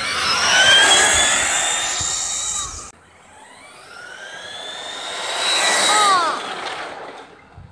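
Electric RC short-course trucks, one of them a Traxxas Slash, racing past at full throttle. The high whine of motors and gears rises as they come on, then drops in pitch as they go by. It cuts off suddenly about three seconds in, then a second pass builds and falls away near the end.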